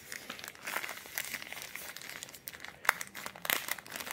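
Thin clear plastic packaging bag crinkling and rustling in the hands as a smartwatch is unwrapped from it, with one sharper crackle about three seconds in.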